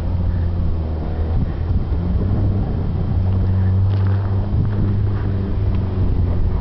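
Nissan pickup's engine running at steady, fairly high revs as it drifts on loose dirt, its tone holding even with a slight rise in pitch about two seconds in.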